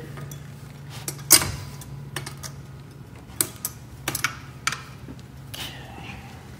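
Handling noises from a floor edger and a sheet of paper: a string of sharp, irregular clicks and knocks, the loudest about a second and a half in, with a light paper rustle near the end.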